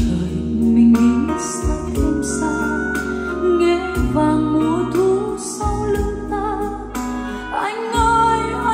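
A ballad with singing, deep sustained bass notes and drum hits, played back through a JBL Authentics 500 wireless speaker.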